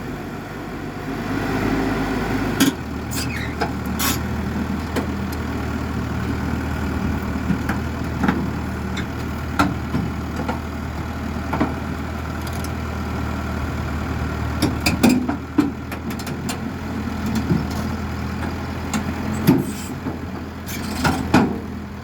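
Water well drilling rig's engine running steadily, with sharp knocks now and then.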